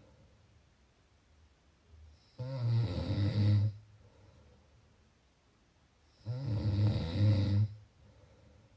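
A person snoring: two long, low, rasping snores on the in-breath, each lasting about a second and a half, about four seconds apart, with quiet breathing between them.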